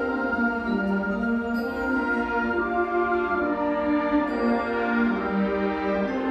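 Concert band of woodwinds and brass playing a slow passage of long, sustained chords that move to new notes every second or so.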